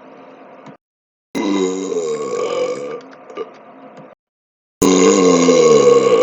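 A man's two long, deep belly burps. The first starts about a second in and trails off over nearly three seconds. The second starts suddenly near the end and runs on; both have a wavering pitch that slides down.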